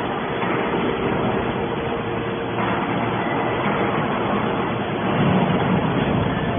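Hydraulic scrap metal baler press running: a steady, loud mechanical noise with a faint hum, growing louder about two and a half seconds in and again near the end.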